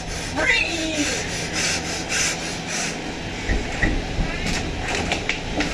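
Plastic trash bag rustling and scraping as it is handled, in a run of short crackly strokes.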